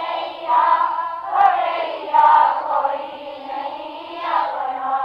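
Voices singing a Hindi devotional bhajan, drawing out long notes that slide from one pitch to the next.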